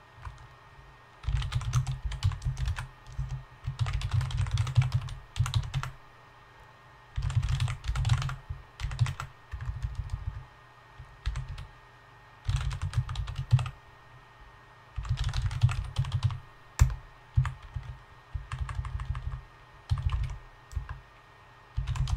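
Typing on a computer keyboard: quick runs of keystrokes, a dozen or so, separated by short pauses.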